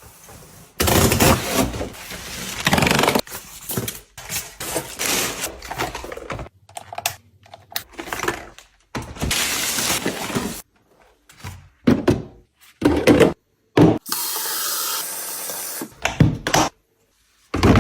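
A quick run of separate household cleaning noises cut one after another: clattering, rubbing and scraping, each starting and stopping abruptly. About 14 seconds in there is a steady hiss lasting roughly two seconds.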